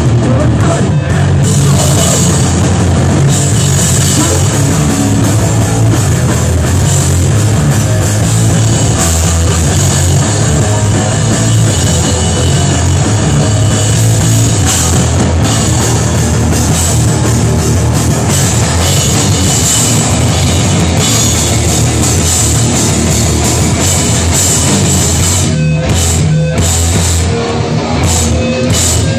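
Hardcore band playing live and loud: distorted guitar, bass and a drum kit hammering out a fast, heavy rhythm.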